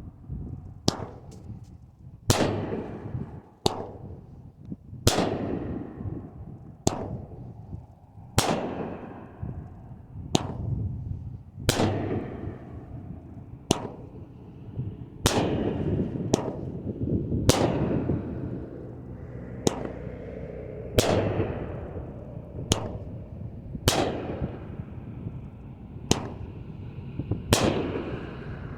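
A 16-shot Black Flag 500-gram fireworks cake firing: a series of sharp bangs from shells bursting, one every one to two seconds, each with a short ringing tail.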